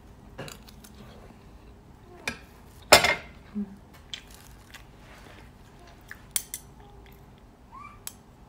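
Metal fork and spoon clinking and scraping against a plate while eating rice: a handful of scattered clicks, the loudest about three seconds in.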